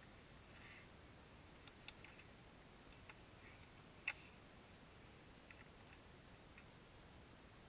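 Near silence with a few faint, scattered clicks, one sharper click about four seconds in.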